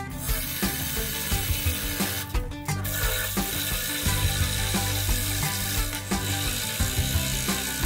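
Electric scroll saw running, its reciprocating blade cutting through an 18 mm thick wooden board with a fast, steady mechanical rattle.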